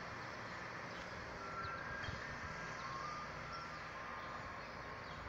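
Soft-serve ice cream truck's chime playing a faint melody of short, high notes at several pitches over the hum of street traffic.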